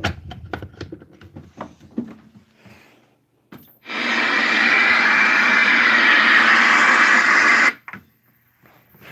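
Loud, even hiss of static from a television's speaker on a channel with no signal, lasting about four seconds and cutting off suddenly as a button on the set is pressed. Before it come a few light handling clicks and knocks.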